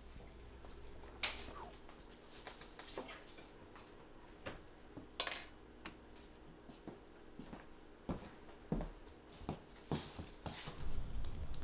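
Kitchen counter sounds: scattered clinks and knocks of a mug, spoon and dishes, with one sharp clink about a second in and a cluster of knocks near the end, over a faint steady hum.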